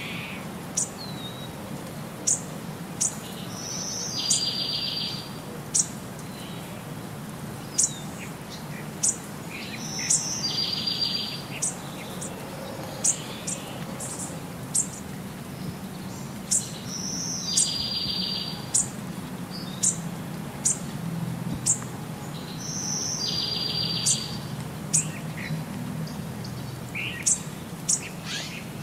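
Birds chirping: sharp, high chirps about once a second, and every six or seven seconds a short buzzy trill, the same pattern repeating over and over like a looped birdsong track.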